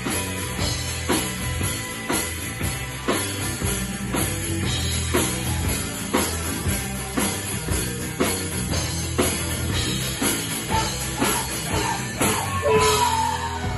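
Rock band playing an instrumental passage: drum kit keeping a steady beat with a strong hit about once a second over bass, and a pitch sliding downward near the end.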